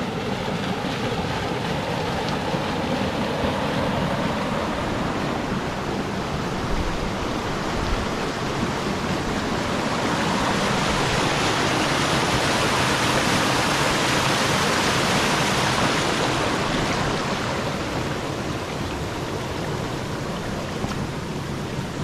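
Creek water rushing over rocks in small cascades, a steady rush that grows louder about ten seconds in and eases again near the end.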